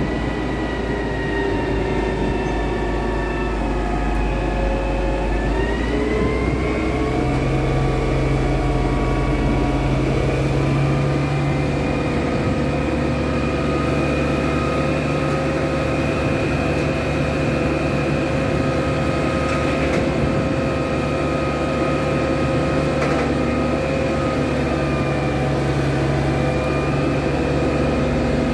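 Concrete pump truck's engine running at raised revs to drive its hydraulics while the boom unfolds, with a steady whine over a low rumble. The whine climbs in pitch about five seconds in, then holds steady.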